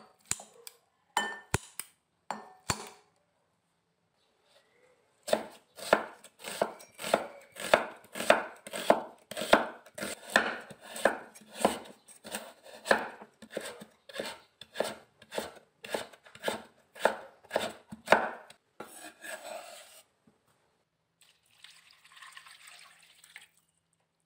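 Cleaver chopping carrot on a bamboo cutting board in an even run of about two chops a second. It is preceded by a few sharp clicks and followed by a short scrape.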